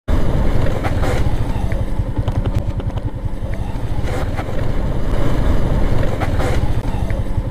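Motorcycle engine running as the bike is ridden along, a steady dense low pulsing; the engine note eases a little about three seconds in and picks up again a second or so later.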